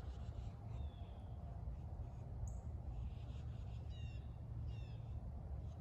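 Wild birds calling over a steady low background rumble, with short quick bird call phrases about four and five seconds in and faint high chirps. No gunshot.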